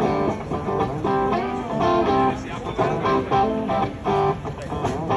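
Guitar music played live through a rock band's amplification during a sound check: repeated chords and notes in a steady rhythm.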